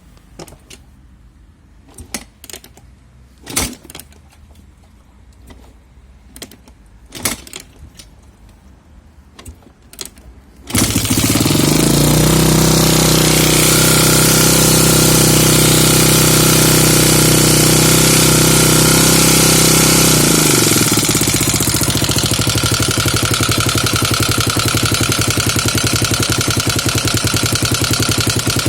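A few scattered clicks and knocks, then a Kawasaki KLX250's single-cylinder four-stroke engine starts about ten seconds in and runs at a fast idle. About twenty seconds in it drops to a lower idle with a rapid clanking from the cylinder head, a fault the owner has not been able to trace.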